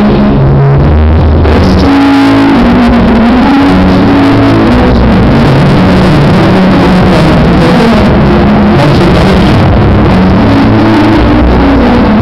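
Loud music playing for a couple's dance on a party dance floor, recorded so loud that it stays at the top of the level throughout and sounds overloaded.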